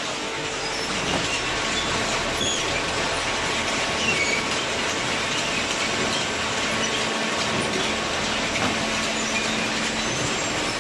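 Machinery running steadily with a dense noisy hum and a few faint steady tones, and scattered short high squeaks through it.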